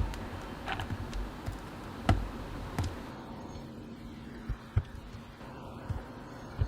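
Irregular sharp clicks and taps of mechanical keyboard parts being handled and fitted, a handful of separate knocks spread over a few seconds.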